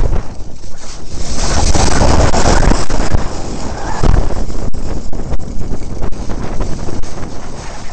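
Wind buffeting the microphone of a POV camera on a skibob at speed, a loud continuous rush with low rumble, mixed with the hiss and scrape of the skibob's skis on hard-packed snow.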